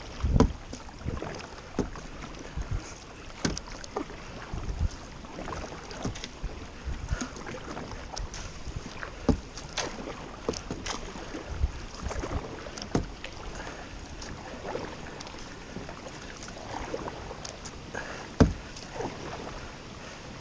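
Kayak paddling on a river: paddle strokes splashing in the water, with irregular knocks and thumps and one heavier thump near the end.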